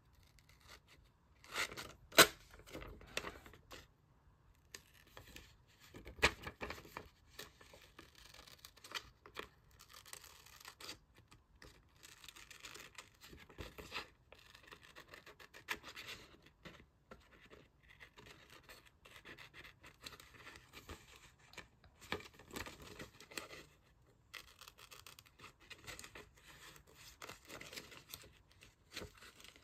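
Magazine paper being handled, rubbed and torn: uneven rustling and scratching, with a few sharp clicks, the loudest about two seconds in.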